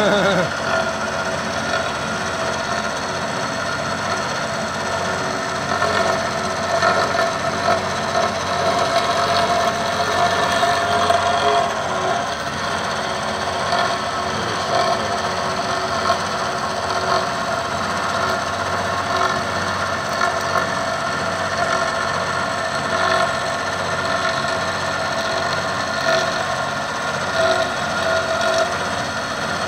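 CNC milling machine cutting a metal plate with an end mill under cutting oil: a steady machining noise with a held tone through it, swelling a little now and then as the cutter works.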